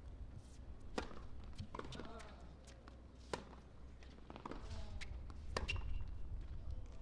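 Tennis serve and rally on a hard court: sharp racquet strikes on the ball and ball bounces, about half a dozen at uneven spacing.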